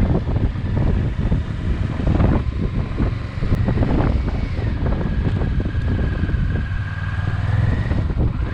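An engine running steadily and close, with a low hum and a thin high whine over it.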